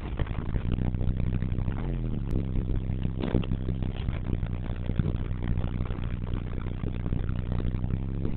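Isuzu turbo diesel engine running at idle, heard from inside the cab as a steady low drone with some rattle, and one brief knock about three seconds in.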